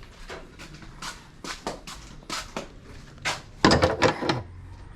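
A series of short knocks and clatters as a small pressure cooker and its lid are handled, with the loudest cluster of clanks about three and a half seconds in.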